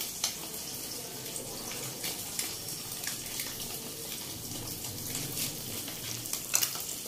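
Melted ghee and caramelised sugar sizzling steadily in a hot pan as milk-soaked semolina is scraped into it from a bowl, with a few faint spatula scrapes.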